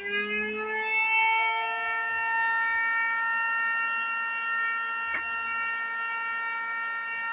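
Homemade jointer's electric motor and 155 mm cutter head spinning up, the whine rising in pitch over about a second, then running steadily at speed. A single brief tick about five seconds in.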